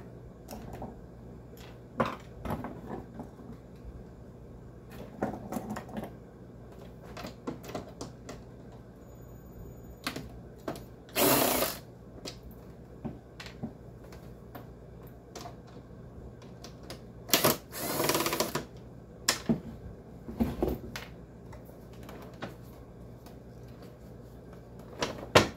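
Dehumidifier parts being handled and pulled apart: scattered clicks and knocks, with two louder noisy bursts about a second long, one near the middle and one about two-thirds of the way in.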